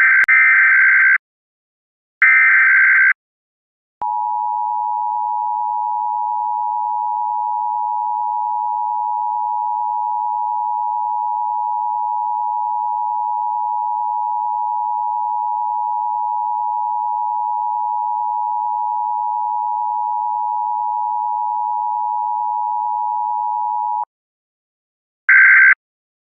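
Harsh electronic buzzer sounding in two short bursts, then a steady electronic tone held unchanged for about twenty seconds, with a faint waver. It cuts off, and after a short pause the buzzer bursts start again near the end.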